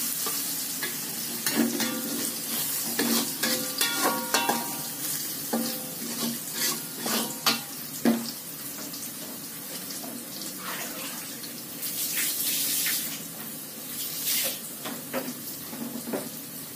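Chopped shallots and chilies sizzling in oil in a thin metal wok while a metal spatula scrapes and clinks against the pan. The scrapes come thick and fast at first and thin out after about eight seconds, leaving mostly a steady sizzle with a few more strokes.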